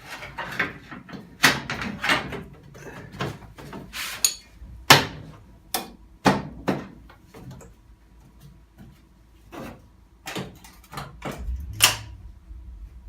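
A series of sharp metal knocks and clunks as a Classic Mini's door is handled and shut during a test fit, the loudest about five seconds in and another near the end.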